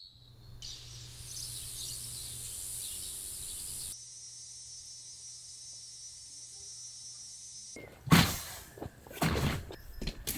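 Outdoor ambience with a steady high-pitched insect drone that changes character about four seconds in, followed near the end by several loud rustling knocks close to the microphone.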